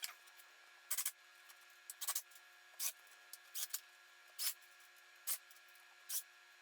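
Rhythmic hand-worked rubbing or scraping strokes on wood, roughly one stroke a second, each a short hiss.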